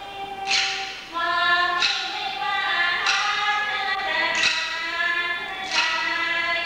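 Thai classical music accompanying dance-drama: a female voice sings long held notes that step in pitch, while small ching hand cymbals strike a ringing beat about once every 1.3 seconds.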